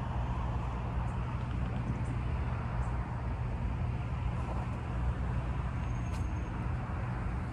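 Steady outdoor street ambience: a low rumble of distant traffic, with a few faint high chirps.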